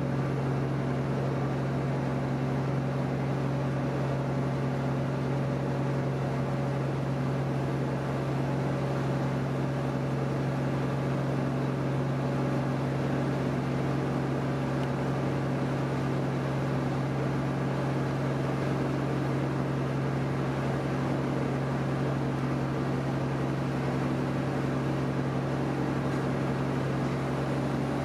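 Steady drone of a passenger ferry's engine heard on board: an unchanging low hum with fainter higher overtones over a hiss of noise.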